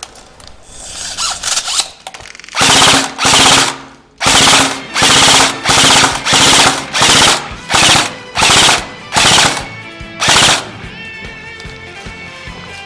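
Airsoft rifle fired on full auto in about a dozen short, loud bursts in quick succession, each about half a second long, starting a couple of seconds in. Softer bursts come before them. Quiet background music is left near the end.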